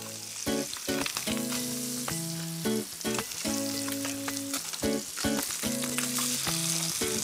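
Sea bass fillets sizzling steadily as they fry in butter and olive oil in a grill pan, with occasional light clicks of tongs and a spatula against the pan as a fillet is turned.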